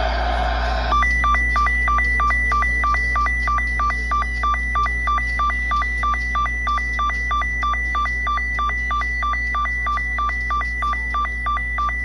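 Weather alert radio alarm sounding for a severe thunderstorm warning: a high and a low tone alternating rapidly in a steady warble. It begins about a second in, after a brief burst of noisy hiss.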